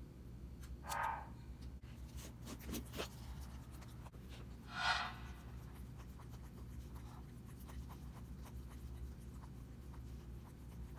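Grooming scissors snipping fur around a dog's paw pads: two short scratchy snips, about a second in and again near five seconds, with a few soft clicks between them.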